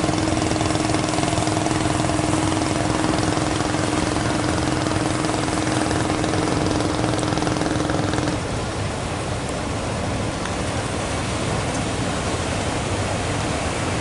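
Steady rush of rough surf breaking, with a fishing boat's engine running at a steady pitch over it. The engine sound stops about eight seconds in, leaving only the surf.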